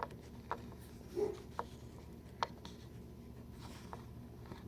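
Scattered small clicks and taps from a Thalia capo and its fret pad being handled as the pad is worked into its slot, about eight irregular clicks in all.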